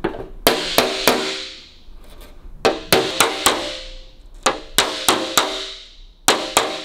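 A serrated body flipper slapping the 1932 Lincoln KA's aluminium bonnet panel over a dolly, in quick groups of three or four sharp taps, each with a short metallic ring. The light taps raise low spots in the alloy panel.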